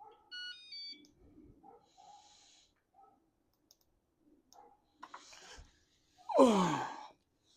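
The e-bike's electronics give a short electronic chime of several quick stepped notes just after the start, as the bike is switched on but fails to run. About six seconds in comes a louder sound that glides sharply down in pitch.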